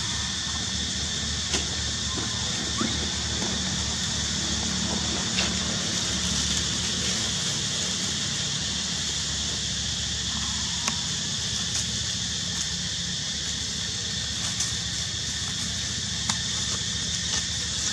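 Steady outdoor background noise: an even high hiss and a low hum, with a few faint short clicks scattered through.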